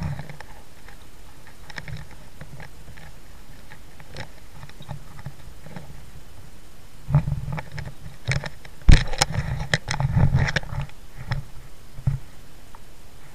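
Paddling a plastic sit-on-top kayak: quiet water sounds, then a run of paddle splashes and sharp knocks against the hull between about seven and eleven seconds, the loudest knock near nine seconds.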